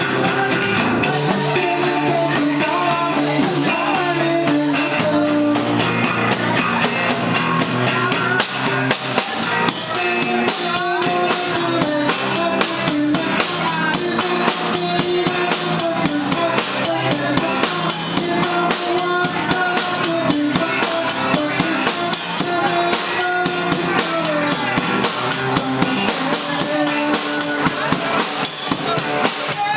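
A live band playing a song: guitar over a drum kit keeping a busy, steady beat of snare and bass drum hits.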